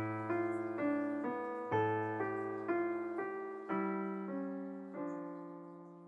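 Background piano music: single notes struck about twice a second, each ringing and dying away, then slowing into longer, lower notes as the music fades out.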